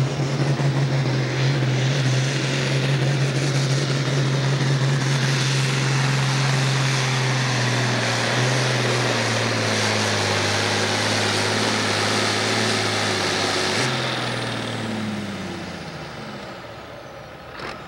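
International Harvester diesel tractor engine running flat out under heavy load as it pulls a tractor-pull sled, its pitch steady with a slight sag partway through. Near the end the revs fall away and the engine winds down as the pull ends.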